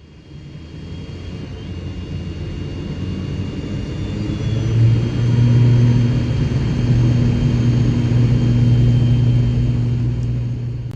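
Jet airliner engines running: a rumble that swells over the first few seconds, joined about four and a half seconds in by a steady low hum and a faint high whine.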